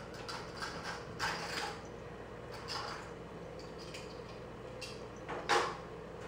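Kittens' paws patting and scuffing on a wet tile floor: a scatter of short, soft scuffs, the loudest a little past five seconds in. A faint steady hum runs underneath.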